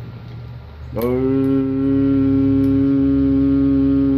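A man's voice holds one long, steady note into a CB microphone for about three and a half seconds, starting about a second in. It modulates the transmitter so the amplifier swings up to almost 250 watts. A low steady hum from the bench equipment runs underneath.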